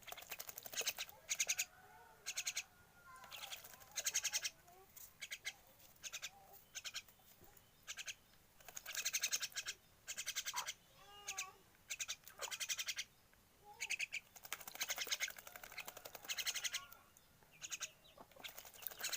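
Javan myna giving harsh, rasping squawks in short bursts, one after another, with quieter warbling notes between them.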